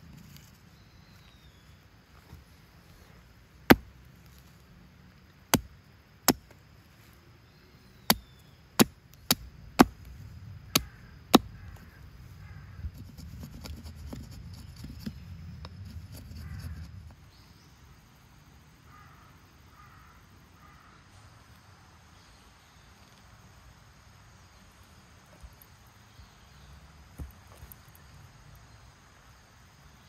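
Tent pegs being hammered into the ground: about nine sharp knocks at uneven intervals over some eight seconds, followed by rustling handling noise.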